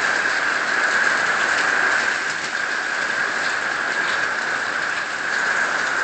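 Heavy tropical-storm rain falling in strong, gusty wind: a steady, even hiss.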